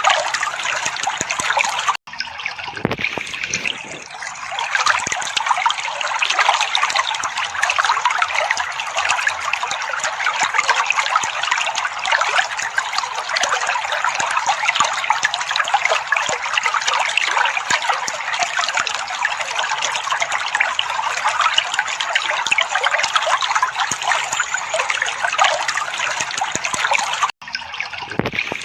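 Steady trickling, splashing water, a continuous babble played as therapy sound for caged songbirds. It drops out for an instant about two seconds in and again near the end.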